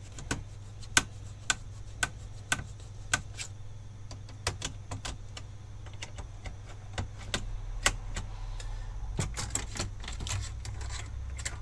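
Small screwdriver clicking against the screws of a computer's heatsink, sharp metallic clicks about two a second at first, then irregular clicks and light metal rattling as the heatsink is worked loose and lifted out.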